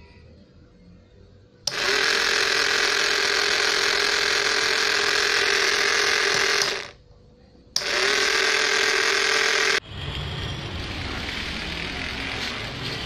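Small DC electric motor of a homemade wired cardboard model car running with a loud, steady whine. It switches on about two seconds in for about five seconds, cuts off, and runs again for about two seconds. Near the end it changes to a lower, rougher running sound as the car drives across a tiled floor.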